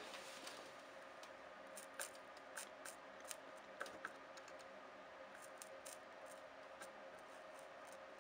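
Faint, scattered small clicks and light scratching from small hand tools being handled during soldering prep, over a steady low hum.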